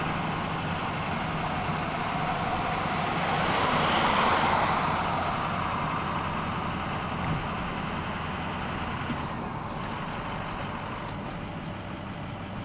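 Diesel locomotive of a stopped coal train idling with a low, steady hum. A rushing noise swells and fades about four seconds in.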